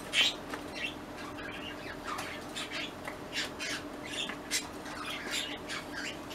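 Cockatiels giving a string of short chirps and squawks, the loudest just after the start, over a faint steady hum.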